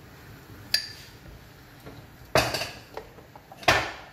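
Wooden spoon knocking and scraping against a small steel pressure cooker pan while salt and ground paste are added to dal: a sharp ringing clink about a second in, then two louder clatters, one mid-way and one near the end.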